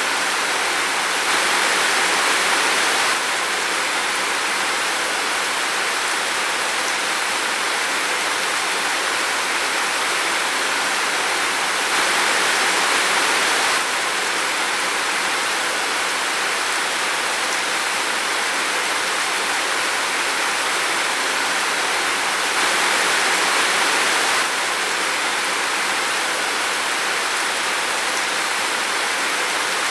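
Steady rain falling in a forest, an even hiss with no breaks. It swells slightly louder three times, each for about two seconds, roughly ten seconds apart.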